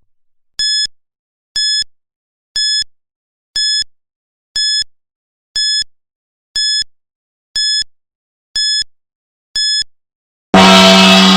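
Countdown timer's electronic beep sounding once a second, ten times, counting down the last ten seconds. Near the end a loud gong sounds and rings on, slowly fading, as the time runs out.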